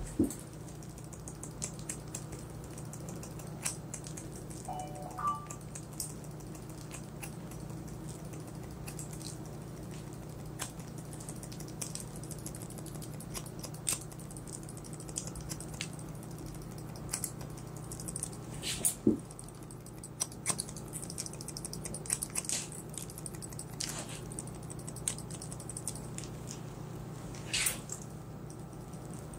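Barber's scissors snipping through hair in short, irregular clicks, a few sharper than the rest, over a steady low hum.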